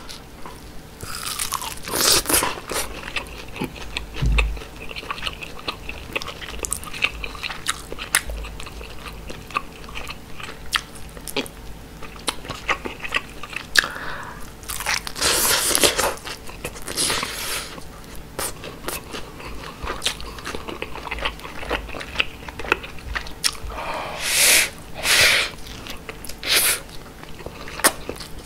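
Close-miked eating of grilled mackerel: crunchy bites into the fish and steady wet chewing, with several louder bites about two seconds in, around the middle and near the end.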